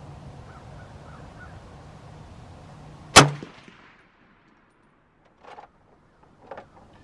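A single rifle shot from a PSL, a Romanian semi-automatic marksman rifle in 7.62x54R, fired about three seconds in. It is sharp and very loud, with a short ringing tail.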